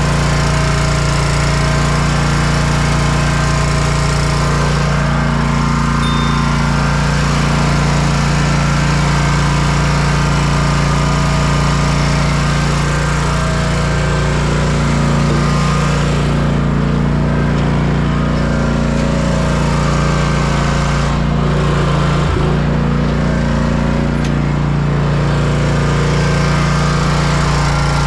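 Kawasaki FR651V V-twin engine of a zero-turn riding mower running steadily at an even speed.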